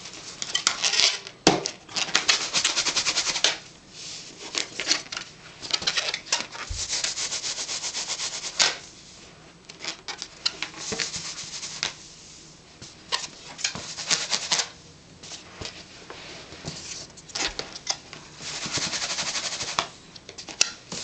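Latex balloons rubbed briskly against hair and a sweater to charge them with static so they cling. The result is a squeaky, scratchy rubbing that comes in repeated bursts of a second or two, with a few light knocks in between.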